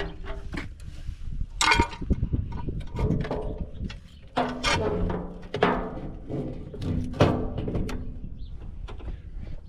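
Knocks, clanks and scrapes of a sheet-metal tractor dash panel being lifted and set into place by hand, some with a short metallic ring.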